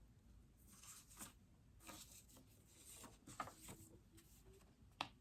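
Near silence: quiet room tone with faint scattered rustling and one small click near the end.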